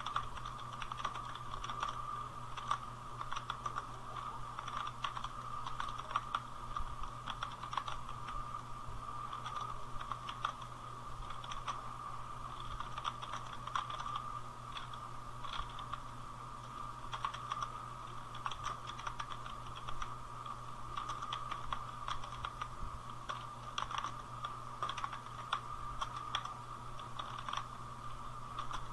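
Computer keyboard typing: fast, continuous key clicks with short pauses, as a typist works through a timed typing test at about 38 words per minute.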